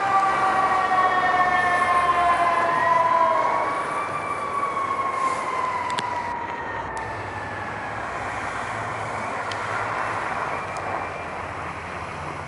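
Fire engine and rescue truck sirens wailing, the pitch sliding slowly down, rising again about four seconds in and sliding down once more. The sirens fade as the trucks drive off, leaving steady street traffic noise.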